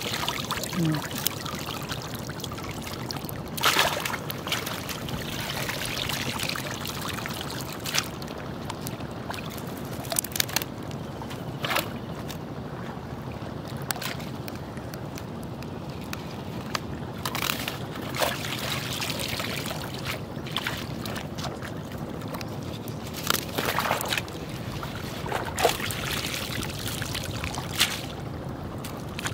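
Water dripping and sloshing around a wet cast net as it is lifted and handled in shallow river water. Sharp splashes come every few seconds over a steady hiss.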